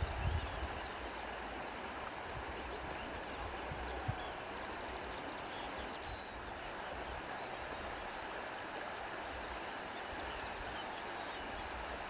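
Steady wind noise, with low gusts buffeting the microphone in the first second and a single small knock about four seconds in.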